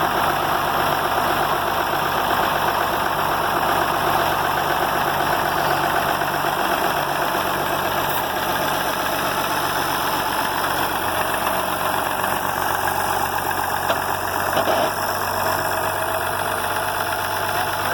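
Tractor engine running steadily, with a small click about fourteen seconds in.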